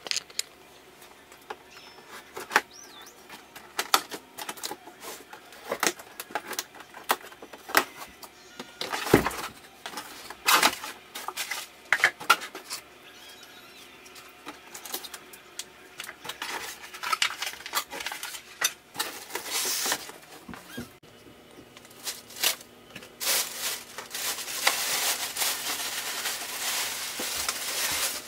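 Unpacking a printer from its cardboard box: cardboard flaps, foam packing blocks and the printer are handled, giving scattered knocks, scrapes and rustles. Near the end there is a stretch of steady rustling.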